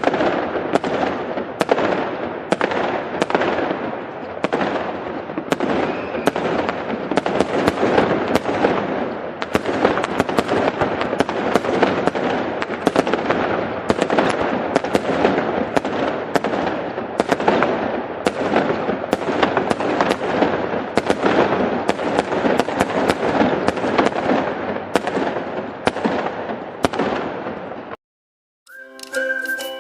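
Fireworks display: a rapid string of bangs, about two a second, over continuous dense crackling. It cuts off suddenly near the end and gives way to music.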